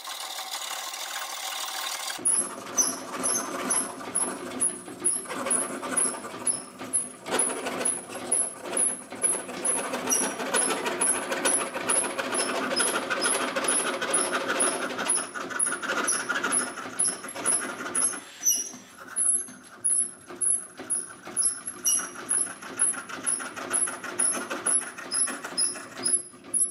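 A 19th-century Joubert Tiersot treadle-powered scroll saw cutting a thin wooden board: the blade strokes up and down through the wood, with a steady rhythm of sharp clicks from the mechanism, several a second. The sound changes character about two seconds in.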